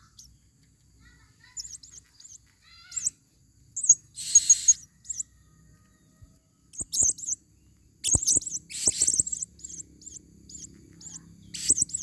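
Female blue-crowned hanging parrots calling: short, high-pitched chirps scattered through, a harsher buzzy call about four seconds in, and a quick flurry of calls after about eight seconds.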